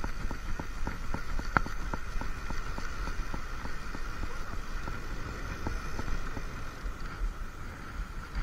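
Fishing reel being wound in, a fast even clicking of about five clicks a second that thins out after the first few seconds, with wind buffeting the microphone.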